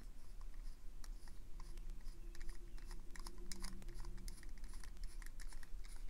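Small, irregular clicks and scratches of a screwdriver bit turning the pocket clip screw of a Twosun TS341 folding knife, with metal ticking against metal. The screw is spinning in place rather than backing out.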